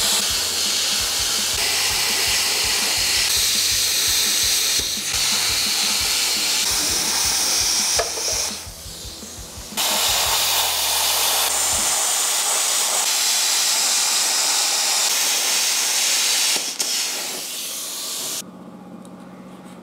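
Plasma cutter hissing steadily as it cuts steel. It breaks off for about a second some eight seconds in, drops again near the end and then cuts off, leaving a faint steady hum.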